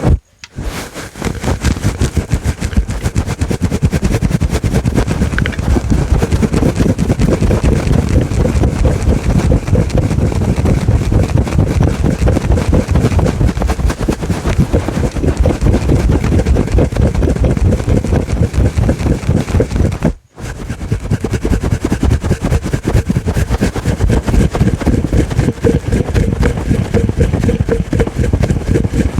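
Fingers scratching a fluffy furry microphone cover fast and hard, heard as dense, rapid rustling right on the mic, with a brief break about twenty seconds in.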